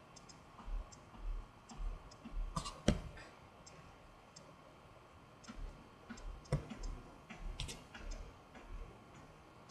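Faint scattered clicks and light plastic taps as a Lego minifigure is turned and set down on a Lego baseplate, with computer mouse clicks, and a few soft low knocks from handling.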